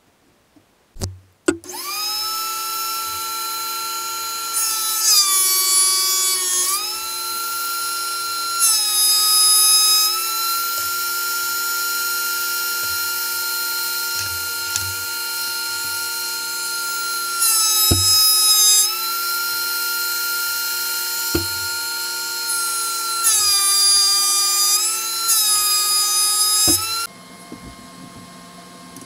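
Benchtop thickness planer running with a steady motor whine. Several times its pitch drops and a rougher cutting noise rises as a board feeds through under load, then it recovers. It shuts off near the end.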